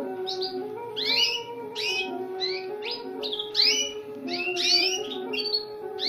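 Gloster canary chicks giving repeated begging chirps, short rising calls at about two or three a second, over background instrumental music.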